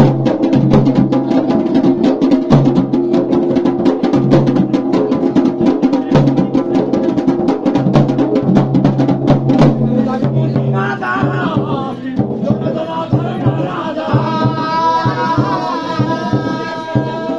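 Folk music instrumental interlude: rapid, dense drumming over steady drone tones, with a wavering melody line coming in about ten seconds in.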